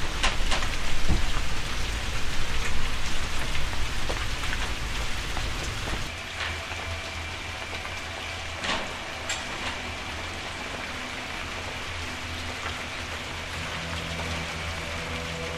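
Steady rain hiss with scattered drop-like clicks, louder for the first six seconds. It then drops in level, and a low hum and faint held tones of an ambient music drone come in under it.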